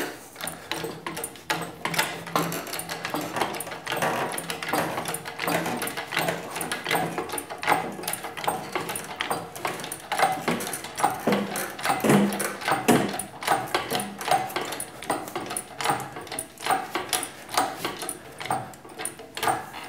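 Hydraulic engine hoist being pumped by hand to lift a heavy load: many irregular metallic clicks and clanks from the pump handle, the hooks and the rigging.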